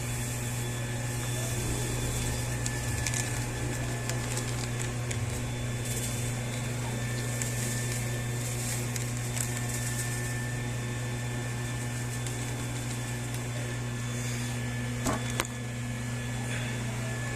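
Turbine Wash mini washing machine's small motor running steadily as it stirs thickening homemade dishwashing liquid, a constant low hum. There is a short knock near the end.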